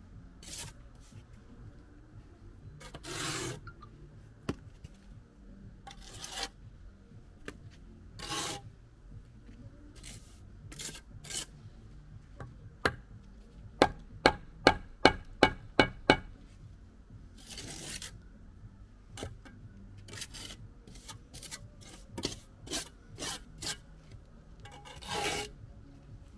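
Steel brick trowel working mortar on bricks: scattered scraping strokes and light taps. Near the middle comes a quick run of about eight sharp taps, about four a second, the loudest sound.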